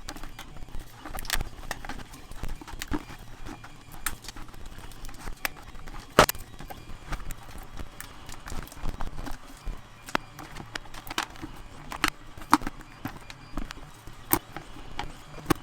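A series of irregular hard clicks and knocks, about a dozen spread unevenly, with one louder knock about six seconds in.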